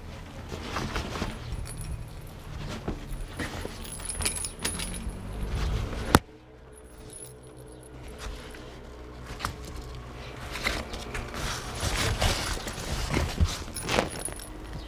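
A ferret playing with a fabric play tunnel and a small toy ball: irregular jingling and rattling of the ball as it rolls, with rustling of the tunnel fabric. A sharp click about six seconds in is the loudest moment.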